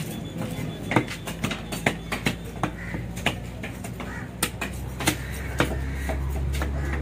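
Sharp, irregular clicks and taps of a large knife cutting through fish flesh and bone against a cutting block, a few strikes a second. A low steady hum grows louder about halfway through.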